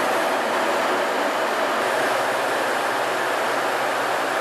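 Steady rushing roar of an aircraft in flight, jet engine and airflow noise without change or break, as heard from aboard the filming aircraft.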